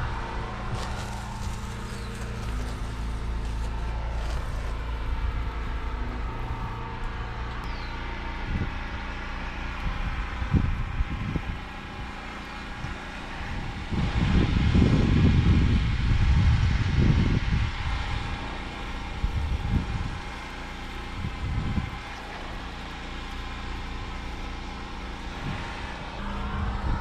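Pressure washer running steadily during a house wash, with a louder spell of low rumbling about halfway through.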